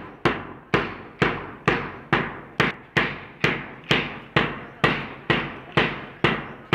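Hand-held drill dumbbells clacked together in unison by a large group, a sharp clack about twice a second in a steady beat, each with a short ringing tail.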